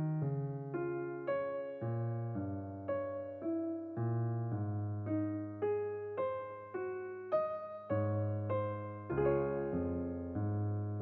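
Background music: a soft electric piano playing a slow melody over sustained bass notes.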